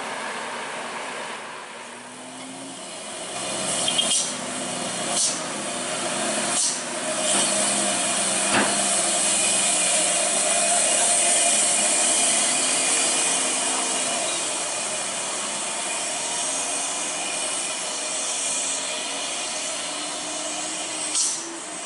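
Heavy vehicles labouring up a steep hairpin climb, their diesel engines heard under a steady rushing hiss, with several short hiss bursts and a single sharp click about eight seconds in.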